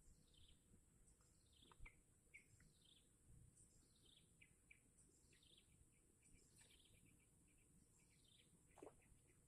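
Faint bird calls outdoors: short chirps falling in pitch, repeated about once or twice a second, over a thin steady high hiss.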